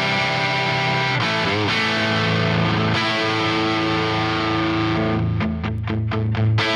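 Electric guitar, a Les Paul with 1958/59 PAF humbuckers, played through a 1966 Marshall JTM45 amp: overdriven sustained chords and notes with a wavering bend a little over a second in, then short choppy stabbed chords near the end.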